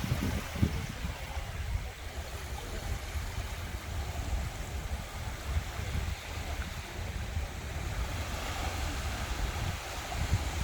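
Sea waves washing onto a sandy beach: a steady hiss of surf with a gusting low rumble of wind on the microphone.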